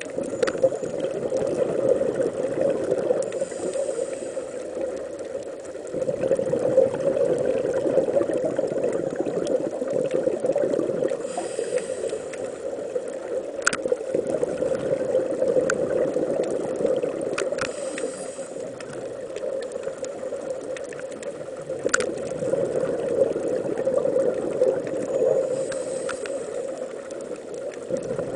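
Underwater sound on a scuba dive: a steady low rumble, with scattered sharp clicks and a soft high hiss about every six or seven seconds.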